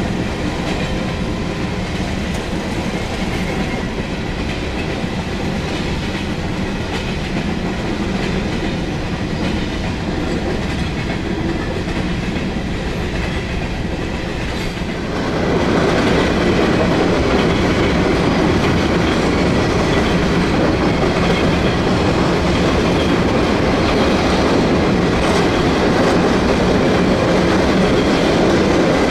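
Freight train of empty grain hopper cars rolling past, with steady clickety-clack and rumble from the wheels on the rails. It is muffled at first, heard from inside a vehicle waiting at the crossing, then louder and fuller about halfway through.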